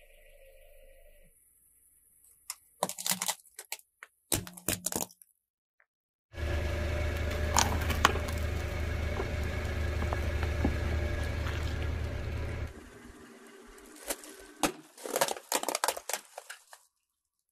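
A car tyre rolling slowly over objects and crushing them. First come short clusters of sharp cracks and snaps from broken plastic electronic parts. Then about six seconds of a loud low hum with steady ringing tones and scattered creaks as the tyre presses down on a metal bowl. Near the end there is crackling from a plastic-wrapped tube being flattened.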